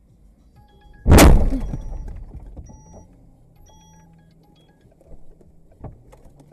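Car collision heard from inside a car: one loud crashing impact about a second in, dying away over about two seconds.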